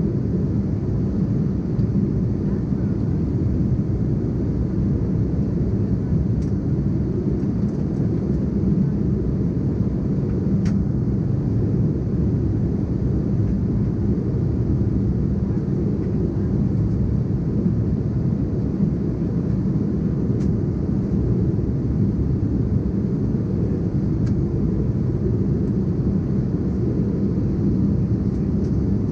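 Steady in-flight cabin noise of an Embraer ERJ-190 airliner: a constant low rumble of its GE CF34-10E turbofan engines and airflow past the fuselage, heard from a window seat inside the cabin.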